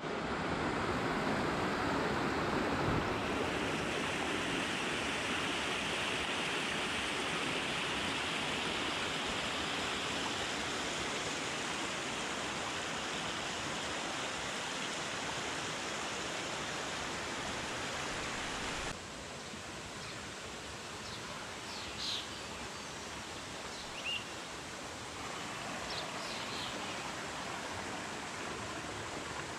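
Shallow rocky stream rushing and splashing over stones, a steady water noise. About two-thirds of the way through it drops abruptly to a quieter, gentler flow.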